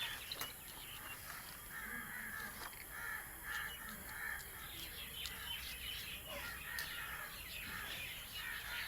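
Crows cawing again and again, short harsh calls at an irregular pace, with other birds chirping faintly.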